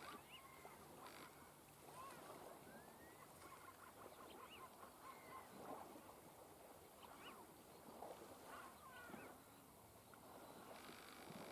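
A flock of waterbirds calling: many short, overlapping calls, faint.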